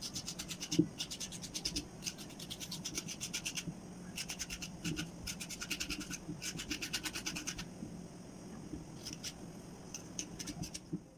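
Metal bottle cap scraping the soft meat of a young coconut inside its half shell, shredding it: quick scratchy strokes, several a second, in short runs with brief pauses, thinning out after about eight seconds.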